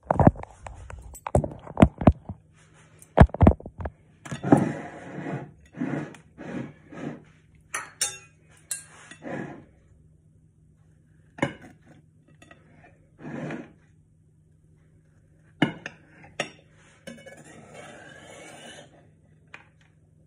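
Knife and ceramic plate clinking and scraping as a glazed layer cake is handled and cut: a quick run of sharp clinks and knocks at first, then scattered knocks and short strokes, and a longer scrape of the blade near the end.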